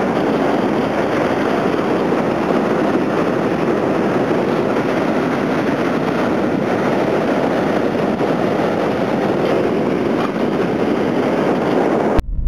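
Surf breaking on a sandy shore, a steady wash of noise, with wind on the microphone. It cuts off abruptly near the end.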